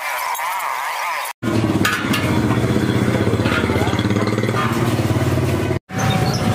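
Squeaky, chirping rubbing for about the first second and a half. Then an abrupt change to a small engine or motor running steadily with a low, even drone, the loudest sound, briefly dropping out near the end.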